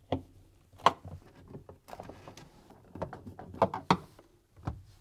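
Screwdriver and hands working on a fridge's plastic inner evaporator cover: a series of short plastic clicks and knocks at uneven intervals as the cover screws are refitted, the sharpest a little under a second in.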